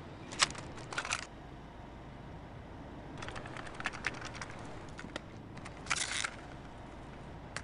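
Scattered short clicks and brief rustles, coming in a few small clusters, over a faint steady background hiss.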